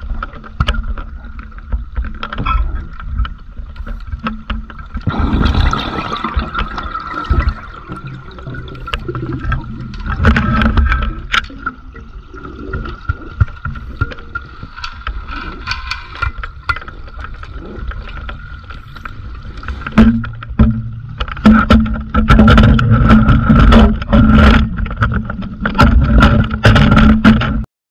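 Underwater bubbling and gurgling from divers' breathing gear, coming in irregular bursts and growing dense and loud over the last several seconds, over a steady hum. The audio cuts off abruptly at the very end.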